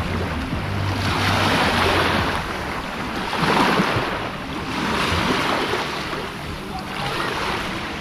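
Small sea waves breaking on a beach: four washes of surf that swell and fade, each lasting about a second.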